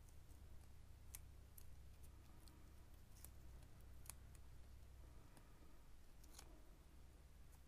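Near silence broken by a handful of faint, sharp clicks at irregular intervals: small handling sounds of beading wire, tape and tools being worked by hand.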